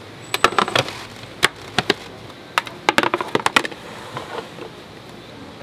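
Sharp clicks and light clatter of plates of mini kimbap rolls being picked up and set down on a counter, coming in irregular clusters over the first three and a half seconds and then easing off.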